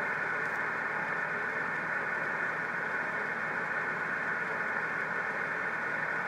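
Steady hiss from an amateur radio receiver on 6-metre upper sideband, cut off above and below by the narrow SSB filter. No signal comes through: the caller that the Trinidad station is answering is not heard at this end.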